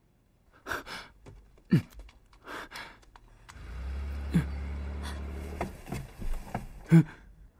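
Short gasps and breaths, with a car's low engine rumble for about two seconds in the middle as the car moves off backward instead of forward.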